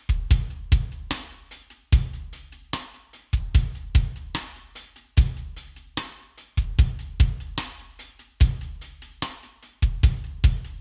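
Background music with a drum kit playing a steady beat: bass drum thumps with snare and hi-hat strikes, several hits a second.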